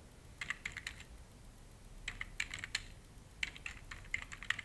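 Typing on a computer keyboard: three quick runs of keystrokes separated by short pauses.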